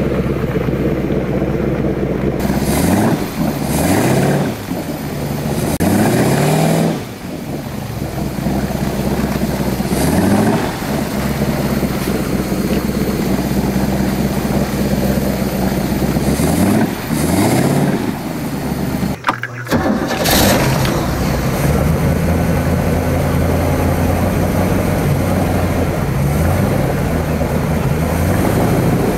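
A 1976 Sidewinder jet boat's 455 Oldsmobile V8 running under way, its pitch rising on the throttle several times, then holding a steady cruise through the last third.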